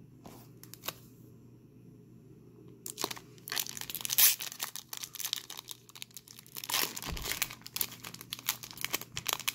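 Foil wrapper of a baseball card pack being torn open by hand, crinkling and tearing. After a couple of light clicks, the crackling starts about three seconds in and goes on busily to the end.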